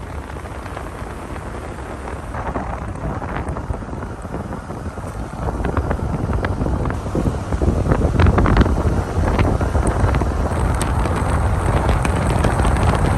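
A car driving at highway speed: road rumble with wind buffeting the microphone, growing louder about two seconds in and again around six seconds.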